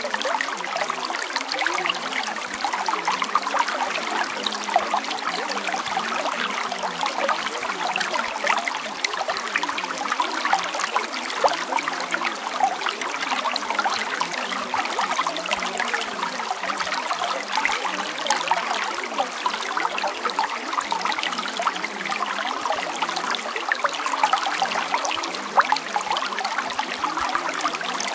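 Running water trickling steadily, like a small stream, in a constant flow without pauses.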